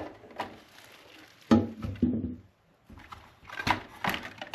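A few separate knocks and clicks of a slot car's packaging being handled, the loudest about a second and a half in, with a cluster of lighter clicks near the end.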